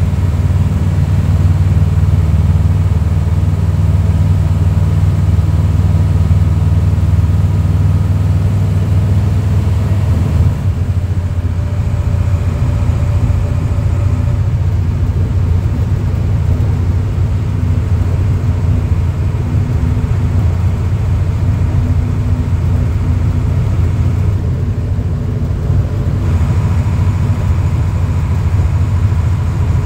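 Caterpillar 3208 V8 turbodiesel of a 1987 Ford C8000 fire engine running under way, heard from inside the cab as a steady low drone. The engine note changes about ten seconds in.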